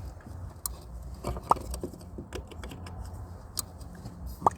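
Scattered light clicks and taps of plastic hose fittings and lines being handled and pushed on, with two sharper clicks about a second and a half in and near the end.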